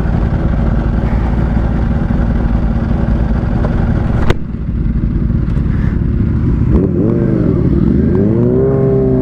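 Supercharged Kawasaki Ninja H2 inline-four with a Vandemon exhaust running under way, with wind noise on the microphone. There is a sharp click about four seconds in. Near the end the engine pitch swings up and down, then rises and holds as the throttle opens.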